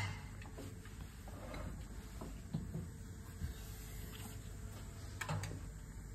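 Houfek SC 530 planer-thicknesser with a spiral carbide-tipped cutter block, running idle with no wood being cut. It gives a quiet, steady low hum with a faint steady tone, and a few light knocks come from hands on the machine.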